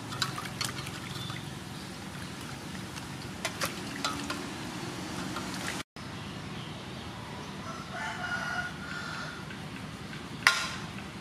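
A rooster crows once, about eight seconds in, a call lasting about a second and a half. Before it come scattered clicks and splashes of pork being washed in water in an aluminium basin, and near the end a sharp click, the loudest sound, as a knife meets the basin while the meat is trimmed.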